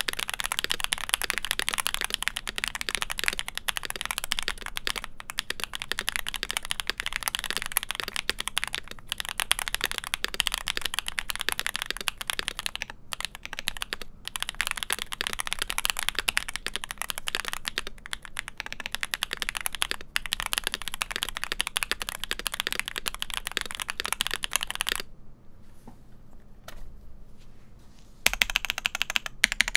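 Rapid typing on an Owlab Jelly Epoch mechanical keyboard: factory-lubed Akko V3 Cream Black Pro linear switches on an aluminum plate, with GMK keycaps and case, plate and PE foam. The keystrokes run steadily, stop for about three seconds near the end, then start again.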